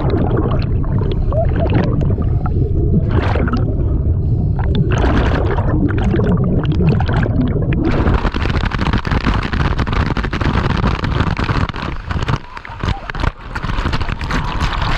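Waterfall's plunging water churning, heard underwater as a loud, muffled rush with gurgling bubbles. About halfway through it opens into a bright, full hissing rush of falling water.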